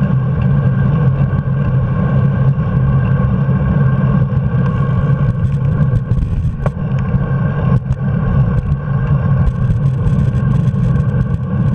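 Steady rumble and hum of road vibration and wind picked up by a handlebar-mounted camera on a moving bicycle, with a few sharp knocks from bumps in the pavement around the middle.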